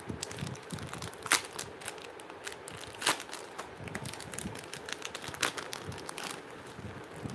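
Plastic jewellery pouches crinkling and rustling as they are handled, with a run of sharp clicks, three of them louder, about a second, three seconds and five and a half seconds in.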